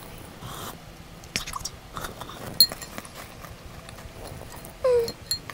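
Eating sounds: a metal spoon clicking and clinking against a glass bowl of milk and Maltesers, with chewing, a few separate ticks spread through the middle. About five seconds in, a brief high-pitched call drops in pitch.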